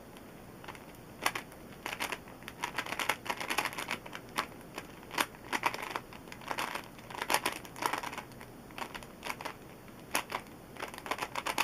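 Original Rubik's Cube, lubricated with Maru Lube, being turned rapidly by hand in a speedsolve: quick runs of plastic clicks and clacks as the layers turn, starting about a second in.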